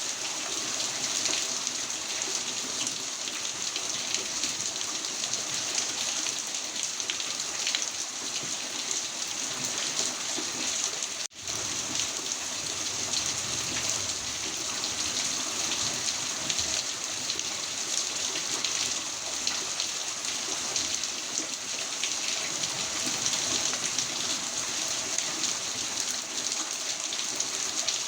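Heavy rain falling steadily, a dense even hiss of drops on surfaces. It cuts out for a split second about eleven seconds in.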